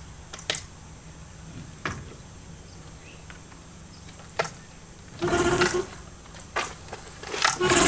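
A 9.9 horsepower outboard motor being pull-started: a few sharp knocks from handling the motor, then two pulls of the recoil starter cord, each a short whirring crank of about half a second that does not catch, the second near the end.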